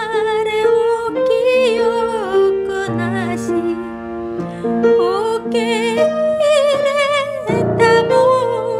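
Slow hymn music: a vibrato melody line, likely sung, over sustained piano chords.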